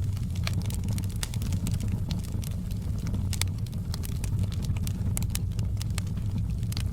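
Wood fire in a fireplace crackling: irregular sharp pops and snaps, several a second, over a steady low rumble of the flames.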